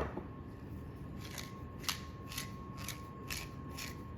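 Pepper mill being twisted to grind black pepper: a run of short, crunchy rasps, about two a second, starting about a second in.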